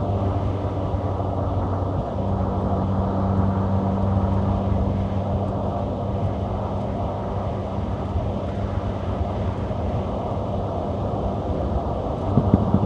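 Golf GTI's 2.0-litre turbocharged four-cylinder running at steady revs while driving, its even engine hum over road and tyre noise. Near the end the sound briefly turns unsettled and a little louder.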